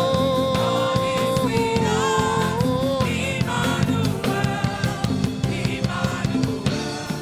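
Live gospel worship music: a singer holds a long note with vibrato for about three seconds over a band with drums, then the band plays on and softens toward the end.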